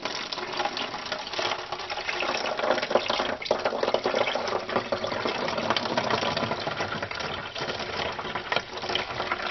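Lemon juice pouring in a continuous stream from a measuring cup through a metal funnel into a plastic bottle, the bottle filling.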